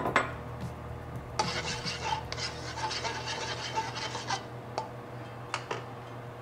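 A plastic spatula scraping and rubbing across a ridged nonstick wok, spreading the oil around, a rasping scrape for about three seconds. A sharp knock comes at the start and a few light clicks follow near the end.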